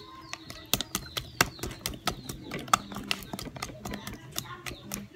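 Dough being kneaded by hand: irregular knocks and slaps, a few a second, as it is pressed and turned against the work surface.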